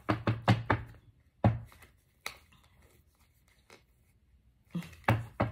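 Tarot cards being handled on a table: a series of sharp snaps and taps. There is a quick cluster at the start, single ones about one and a half and two seconds in, a pause, then another cluster near the end.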